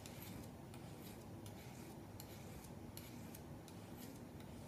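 Faint rasping of a hand file drawn across the steel edge of a two-blade broadhead in short strokes, about three a second. The filing is raising a wire burr along the edge.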